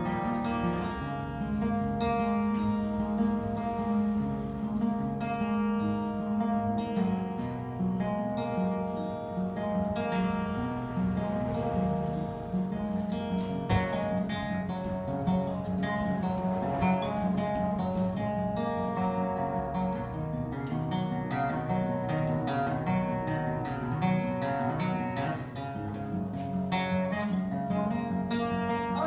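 Acoustic guitar played solo: a continuous instrumental passage of plucked notes and ringing chords.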